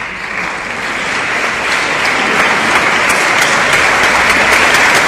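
Crowd applauding, a dense mass of clapping that builds steadily in loudness.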